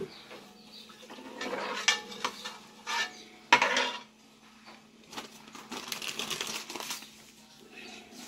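A spoon knocking and scraping against a cooking pot as cornmeal is spooned into hot broth and stirred for coxinha dough, with scattered sharp clinks, the loudest about three and a half seconds in.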